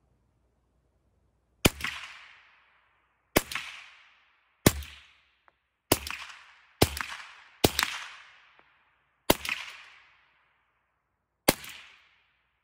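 Eight rifle shots fired in fairly quick, uneven succession, each a sharp crack followed by a short fading echo.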